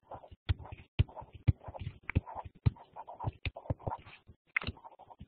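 A pen stylus tapping and scratching on a writing tablet while numbers are written: a string of irregular sharp taps, about two a second, with soft scratching between them.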